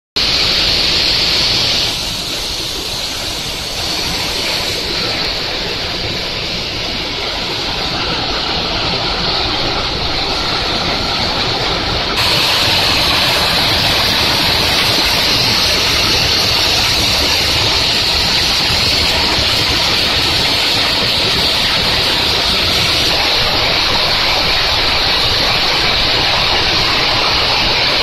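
Belt conveyor running loaded with lumps of silica quartz: a steady, loud rushing rattle of the belt and rock over the idler rollers, growing louder about twelve seconds in.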